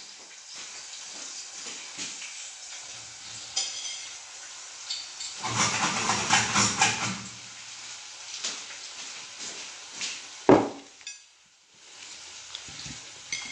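Kitchen work off-camera: food sizzling in a frying pan with pots and utensils clattering, rising to a louder stretch of activity around the middle. A single sharp knock comes about ten and a half seconds in.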